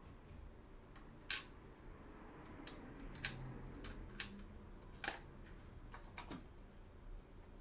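A handful of sharp clicks and taps of a small hand tool and screws against hard plastic, with the loudest about a second, three seconds and five seconds in, and a faint low hum in the middle.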